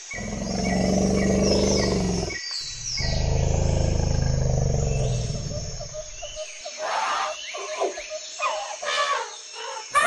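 Wildlife soundscape: birds chirping throughout, with two long, low roars from a large animal in the first six seconds, followed by a stretch of shorter, sharper animal and bird calls.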